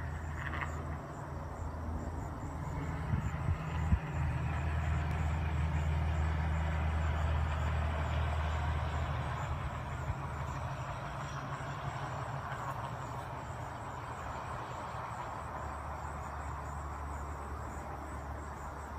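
A steady low hum, like a running engine, that weakens about halfway through, over a faint buzz of honey bees flying around the hive entrance.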